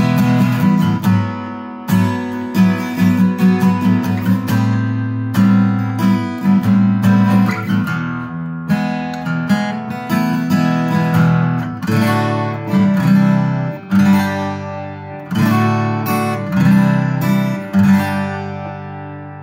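Cat's Eyes CE-250 dreadnought acoustic guitar, with a spruce top, rosewood back and new 11-gauge strings, played with the fingers. Strummed chords mix with picked notes in a continuous, ringing passage.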